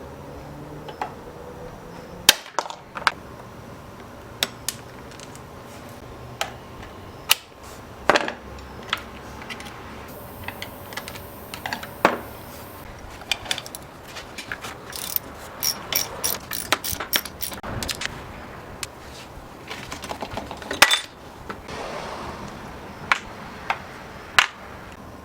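Irregular sharp clicks, taps and clacks of tools and chainsaw parts being handled and set down on a work surface, some in quick runs and others spaced a second or more apart.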